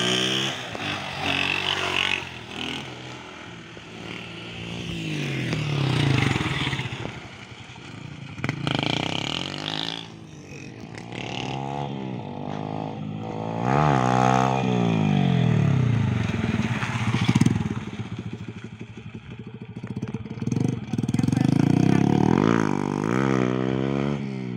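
Small motorcycles revving as they are ridden past on a dirt road, some in wheelies: several passes, each engine note climbing under throttle and then dropping away.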